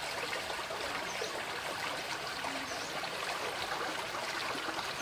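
Water trickling steadily in a shallow stream.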